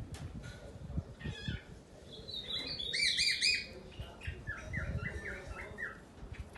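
A young animal's high-pitched chirping squeals. A couple of calls come about a second in, then a louder burst of repeated squeals around three seconds, then a run of short, quick chirps, with low soft thumps underneath.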